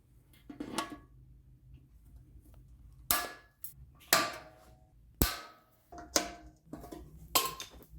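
Hammer striking steel rivets (annealed roofing nails) into a mild-steel helmet: a light tap near the start, then about five sharp metallic strikes roughly a second apart, each ringing briefly.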